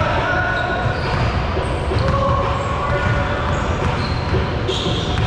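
Basketballs bouncing on a hardwood court in a large indoor gym, with players' voices in the background.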